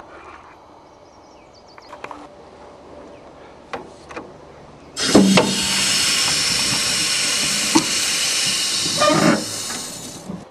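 High-pressure jet from a handheld spray wand. It makes a loud, steady hiss that starts abruptly about halfway through, holds for about four seconds, then tails off. A few faint knocks come before it.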